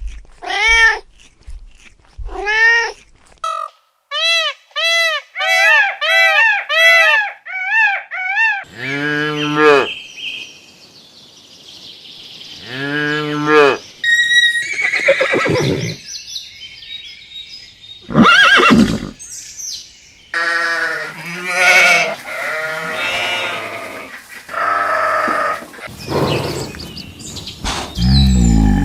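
A string of farm animal calls. Quick, high, repeated cries come a few seconds in, then lower bleat-like calls and more mixed calls, each a second or so long.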